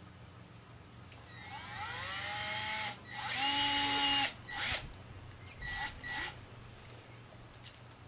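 Cordless drill driving a screw into a tree trunk, run in bursts: a spin-up with a rising whine about a second and a half in, a longer steady run at three to four seconds that is the loudest, then a few short bursts.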